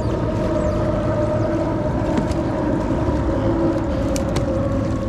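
Steady mechanical drone, several held tones over a low rumble, as the kayak moves across the water. A few faint clicks come about two seconds in and again a little after four seconds.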